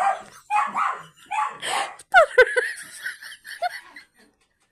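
Dog barking and yipping in a series of short, excited bursts, alerted by knocking as if someone were at the door. Two sharp knocks about two seconds in.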